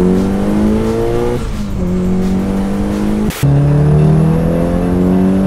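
Mitsubishi Lancer Evolution's turbocharged four-cylinder engine pulling hard under full throttle. The pitch climbs steadily, drops back at an upshift about a second and a half in and again at about three seconds, then climbs again.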